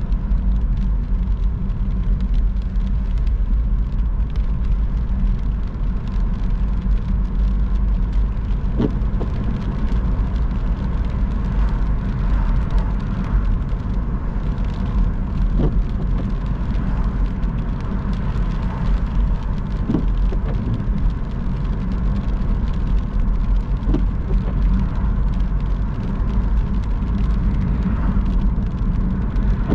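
Car driving on a wet road: a steady low rumble of road and engine noise, with a few faint short knocks along the way.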